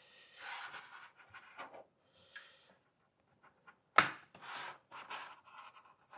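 Mac mini's plastic bottom cover being pried and lifted off: scraping and rubbing of plastic with small clicks, and one sharp, loud click about four seconds in.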